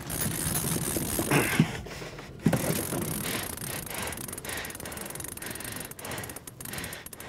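Large conventional fishing reel being cranked under the heavy load of a hooked Greenland shark, its gears and ratchet clicking rapidly, the clicks thickest near the end.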